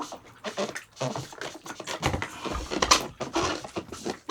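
Irregular rustling, tapping and knocking of objects being handled, with one sharper knock about three seconds in.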